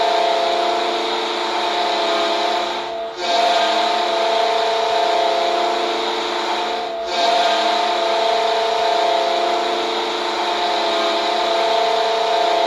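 Goal horn blasting three long, loud blasts of several tones sounding together, with short breaks about three and seven seconds in.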